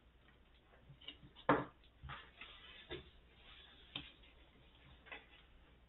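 A handful of sharp clicks and taps, the loudest about one and a half seconds in, with light rustling between them, as a diamond-painting canvas is handled and measured on a tabletop.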